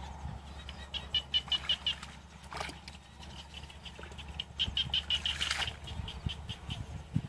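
An animal calling in two quick runs of short high notes, about six or seven a second: one about a second in and another past halfway.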